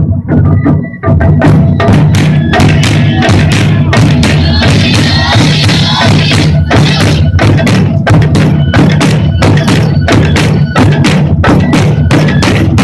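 Japanese taiko drum ensemble playing a fast, dense beat of loud drum strikes, with a brief dip about a second in.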